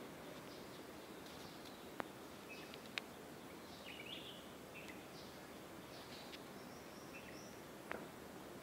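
Faint outdoor ambience with scattered short bird chirps every second or so, and two sharp clicks about two and three seconds in.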